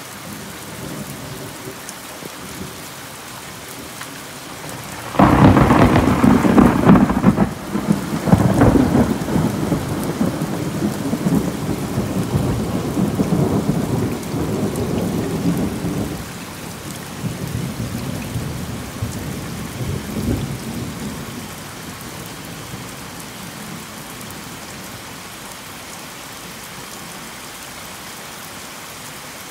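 A thunderclap breaks suddenly about five seconds in and rolls on for about ten seconds, with a smaller rumble a few seconds later, over the steady hiss of heavy rain.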